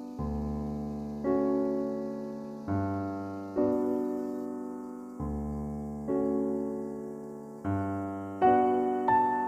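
Background piano music: slow chords, each struck and left to fade before the next, about one every second and a half.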